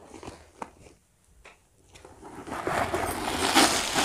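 Light taps and clicks of a bag being handled, then, about two and a half seconds in, a loud rustling handling noise that builds toward the end as the backpack and the recording phone are moved about.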